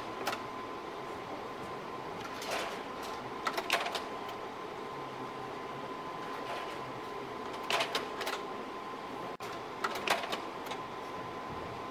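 A projector running with a steady hum and a thin whine, broken four times by short clusters of mechanical clicks and clunks a few seconds apart.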